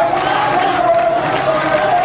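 A large crowd of workers chanting and cheering, many voices shouting together, with hands clapping.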